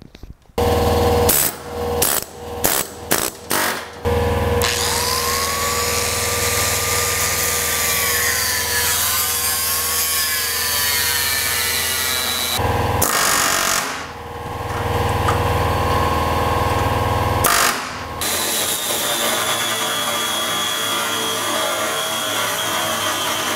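Angle grinder grinding out steel spot welds on an early Ford Bronco's windshield-frame hinge. A few short bursts in the first four seconds, then continuous grinding whose pitch dips and rises as the disc bites, with two brief breaks midway and a steadier, higher tone near the end.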